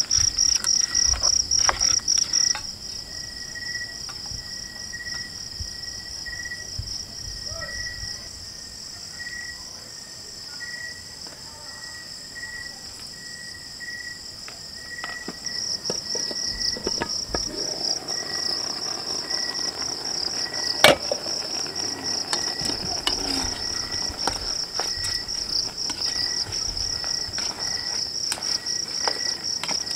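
Night chorus of crickets: a steady, high-pitched pulsing trill, with a lower chirp repeating about every three-quarters of a second. Scattered light clicks and knocks sound over it, with one sharp click about two-thirds of the way through.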